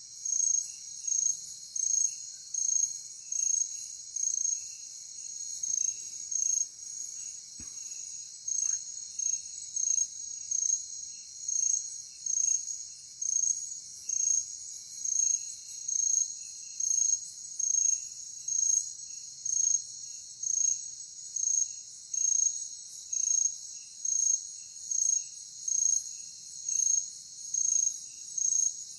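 Night insect chorus of crickets: a steady high-pitched drone with a loud, regular chirp repeating about once a second and fainter chirps beneath it.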